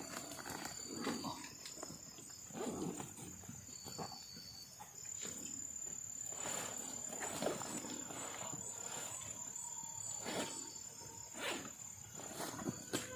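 Night insects giving a steady high-pitched trill, with scattered short rustles and knocks close by.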